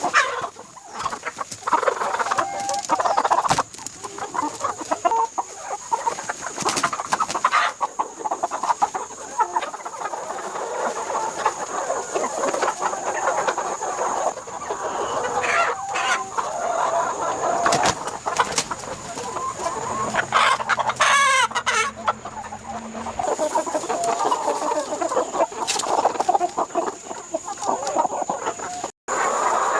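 A flock of chickens clucking continuously, with one long rooster crow about two-thirds of the way through and a few sharp knocks.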